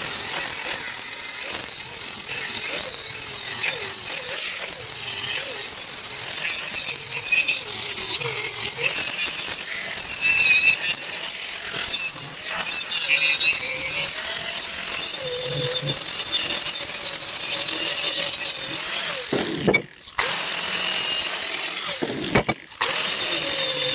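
Angle grinder grinding steel, its high whine dipping and rising as it is pressed on and eased off the work, with two brief breaks near the end.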